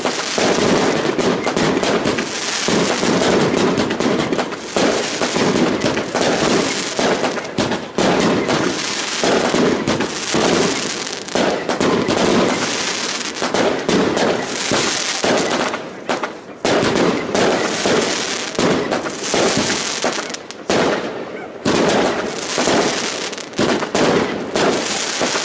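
Aerial fireworks display: a dense, rapid barrage of shell bursts and crackling with hardly a break, easing briefly twice in the second half.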